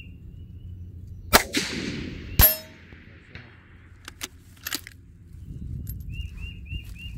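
Two rifle shots about a second apart, the first followed by a long echo. A couple of seconds later come a few light metallic clicks of a bolt being worked. A bird chirps several times near the end.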